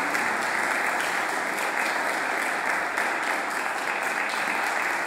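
Audience applauding steadily, many hands clapping together at an even level.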